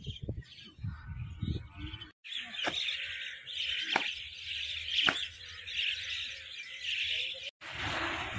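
Many birds chirping at once in a dense chorus, with three sharp knocks about a second apart in the middle.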